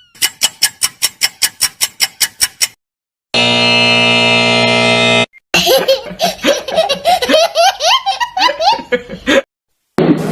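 A string of quiz-game sound effects. First a rapid run of clicks, about seven a second, then a held buzzer-like chord for about two seconds. It ends with a high-pitched, sped-up cartoon laugh of short rising yelps.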